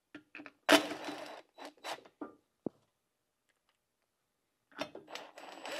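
Cordless drill run in short bursts, driving the screws that hold the check-valve disc onto the windmill compressor's pump, among clicks and clatter of screws and metal parts being handled. The longest, loudest run comes about a second in, and another cluster of handling noise near the end.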